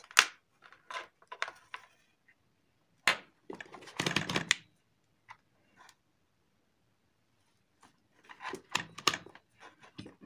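Clicks and short rattles from multimeter test probes and alligator clips being handled and clipped onto a fan capacitor's leads, coming in scattered bursts with a quiet stretch in the middle. A few more clicks near the end come as the multimeter's rotary selector is turned.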